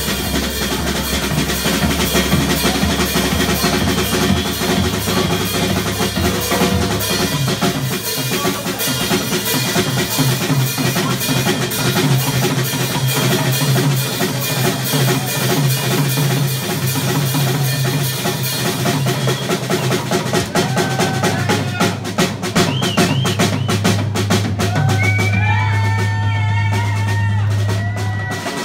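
Live rock drum kit solo: rapid strokes on snare, toms, cymbals and kick drum, growing denser in the last several seconds. A held low note sounds under the drums from about twelve seconds in.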